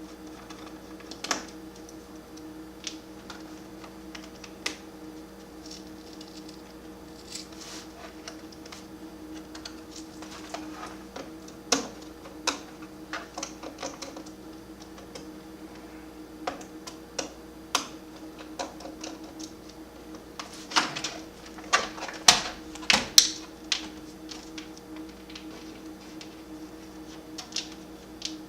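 Small clicks and taps of a screwdriver working screws out of a plastic laptop case and of the parts being handled, irregular and scattered, with a quicker run of louder clicks about two thirds of the way through, over a faint steady hum.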